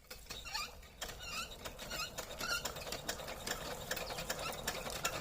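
Old sewing machine starting up about a second in and then running with a fast, even clatter.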